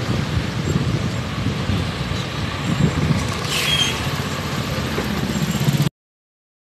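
Rumbling city street traffic heard while riding a bicycle, with a brief hissing squeal about three and a half seconds in. The sound cuts off to silence near the end.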